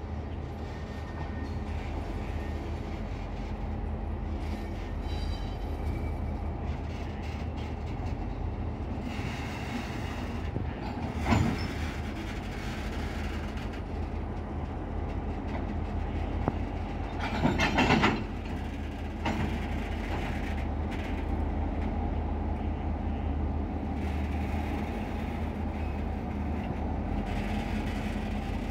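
Diesel locomotive's engine running steadily as it shunts a train of loaded flat wagons. A single sharp knock comes about a third of the way through, and a short burst of louder knocks about two-thirds through.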